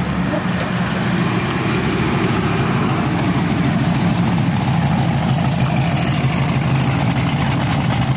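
Car engine idling steadily close by, a low, even rumble.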